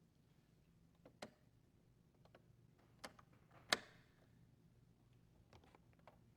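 Faint, sharp plastic clicks as the Roomba 800's front caster wheel housing is handled and snapped back into the robot: a few light clicks with one louder click near the middle, over a low hum.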